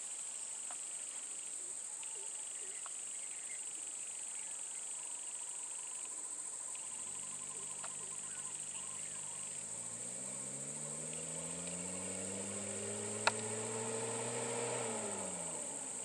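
Steady high-pitched drone of insects, with a light truck's engine coming in about halfway through, running low and then revving up steadily for several seconds before dropping back near the end. A single sharp click is heard a few seconds before the end.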